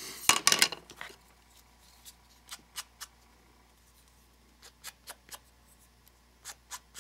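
Small piece of paper being handled and cut by hand: a rustle of paper about half a second in, then scattered short, sharp snips and clicks.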